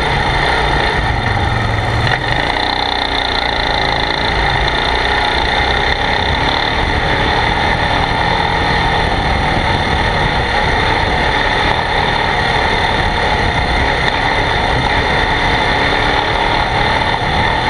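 ATV engine running steadily while the quad is ridden along a dirt trail.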